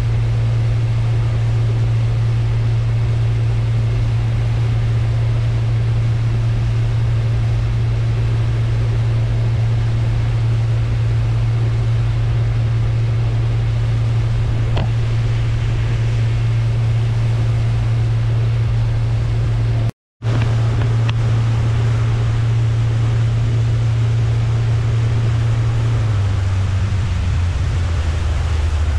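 Boat engine running at steady cruising speed across open water, a constant low hum under wind and water rush; about three seconds before the end its tone drops as the boat slows.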